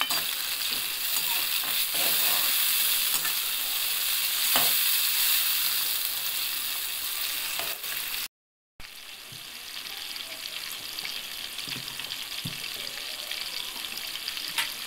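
Onions, tomatoes and green chillies sizzling in hot oil in a metal kadai, with a slotted steel spatula scraping and knocking against the pan a few times as they are stirred. The sound drops out for half a second about eight seconds in and comes back as a quieter sizzle.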